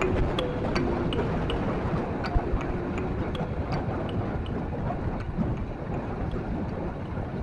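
Steady motorcycle riding noise of wind and engine, with faint, evenly spaced ticks about two to three times a second.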